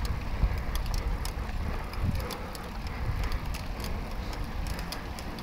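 Wind buffeting the microphone while riding a road bicycle on asphalt, with a low rumble of rolling noise and scattered faint clicks.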